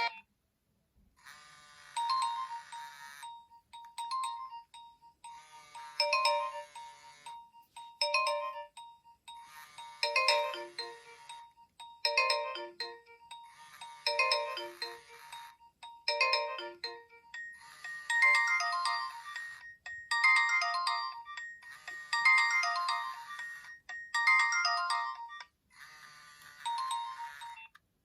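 Nokia 2600 ringtone: a synthesized polyphonic melody that repeats in short phrases about every two seconds over a held note, with a higher held note joining about two-thirds of the way through. It starts about a second in and stops shortly before the end.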